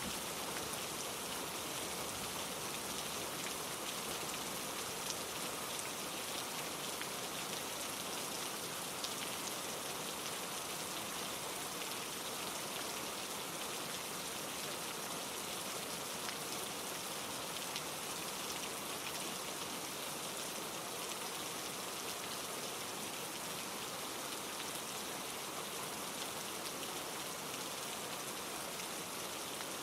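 Steady rain falling on leaves and rocks, many fine drop ticks over an even wash, blended with a mountain stream tumbling over granite rocks.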